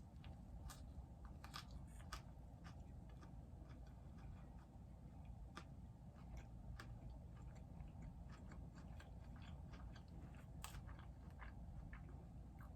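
Faint close-up chewing of a turkey sandwich: many small, irregular wet clicks and soft crunches of bread, over a low steady room hum.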